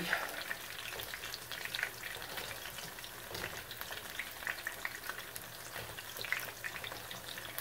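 Breaded chicken Kiev shallow-frying in hot oil in a pan: a steady sizzle with scattered crackles and pops.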